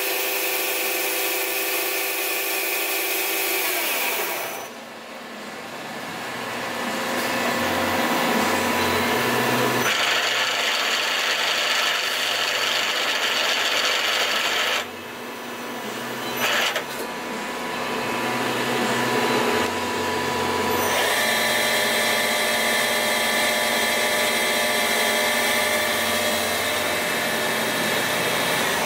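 2001 Daewoo Puma 230MSB CNC lathe's motors and spindles running: a steady whine of several tones that falls in pitch about four seconds in as a spindle slows, then a noisier hum. The sound drops briefly about fifteen seconds in, with a clack a moment later, and a steady many-toned whine returns about twenty-one seconds in.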